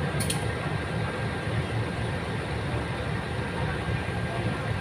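CC203 diesel-electric locomotive rolling slowly past at close range, its diesel engine running with a steady low rumble. A brief faint high click comes near the start.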